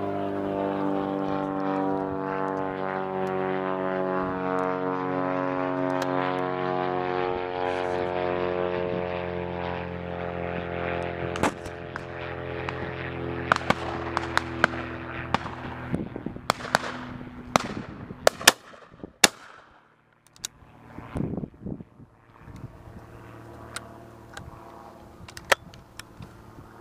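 A propeller aircraft's engine drone passing overhead, falling slowly in pitch and fading away over about sixteen seconds. From about eleven seconds in there is a scatter of sharp shotgun shots, the loudest around eighteen to nineteen seconds in.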